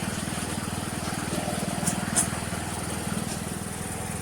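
Troy-Bilt lawn tractor engine running steadily, with a couple of faint clicks about two seconds in.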